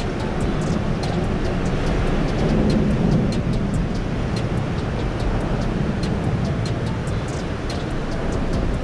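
Road traffic on the bridge overhead: a steady low rumble that swells briefly about three seconds in as a vehicle passes, with faint regular high ticking over it.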